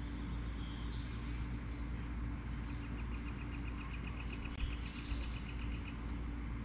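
Backyard ambience: small birds calling in short high chirps, repeated over and over. About three seconds in there is a rapid even trill lasting a couple of seconds. A steady low rumble runs underneath.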